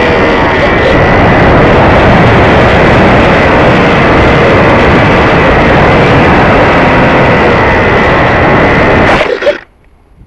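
Loud electric-motor whine and rushing wind on the onboard camera of a HobbyZone Firebird Stratos RC plane in flight. About nine seconds in there are a few knocks as the plane touches down in grass, and the sound cuts off suddenly to near quiet.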